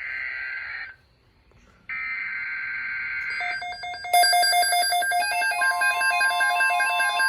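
Emergency Alert System SAME header data bursts: two bursts of harsh digital data, the first ending about a second in and the second running from about two seconds to three and a half. Then an electronic alert tone starts, a rapid pulsing beep pattern that steps between several pitches, with more tones joining about half a second and again two seconds later.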